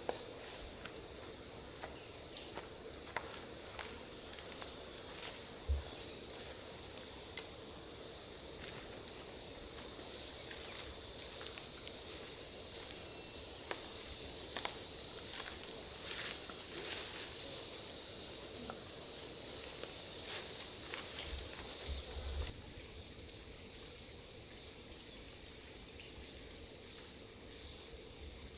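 Steady high-pitched insect chorus in forest, with scattered light clicks and knocks on top, the sharpest about seven seconds in.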